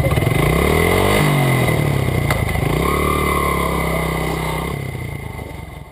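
Small single-cylinder four-stroke dirt bike engine of the Honda XR/CRF100 class pulling away: it revs up, changes gear about a second in, revs up again and runs steadily, then fades out near the end.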